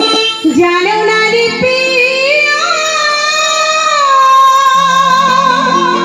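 Baul folk song: a singer's voice slides up and then holds one long, wavering note over sustained keyboard notes.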